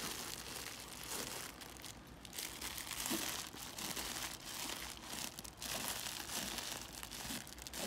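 Crinkly, crunchy insert of a plush rat dog toy crackling in irregular bursts as a Siberian husky chews and mouths it.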